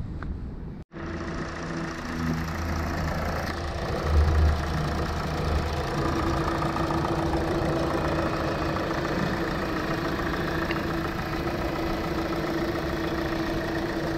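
A 2021 Hyundai Elantra's DOHC 16-valve four-cylinder engine idling steadily with the hood open, with a short low thud about four seconds in.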